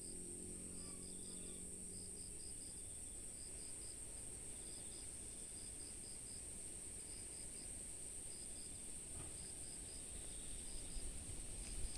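Insects calling: a steady high-pitched buzz, with a second insect chirping in short runs of three or four pulses about once a second, typical of crickets. Near the end a low rumble grows louder.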